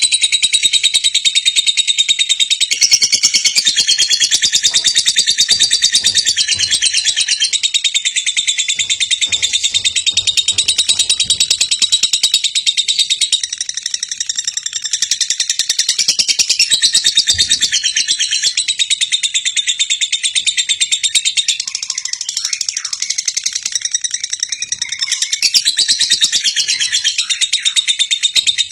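Lovebird singing a long, unbroken, rapid high-pitched chatter.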